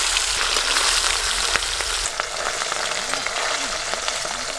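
Small whole fish sizzling in hot mustard oil in a steel wok just after going in: a loud, spitting hiss full of small crackles that eases off a little about two seconds in.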